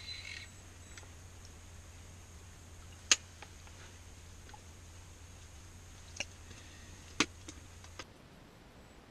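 A few sharp clicks and knocks of small gear being handled, the loudest about three seconds in and several more between six and eight seconds, over a steady low hum that stops about eight seconds in.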